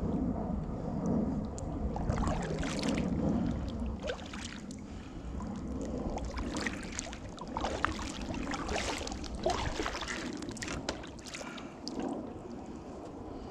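A kayak being paddled: water splashing and dripping off the paddle blades in irregular strokes, starting about two seconds in.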